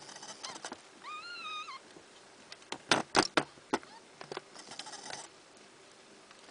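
A nursing kitten mews once, a short high call that rises and falls, about a second in. Around three seconds in comes a quick cluster of sharp taps and clicks, the loudest sound here, followed by soft rustling.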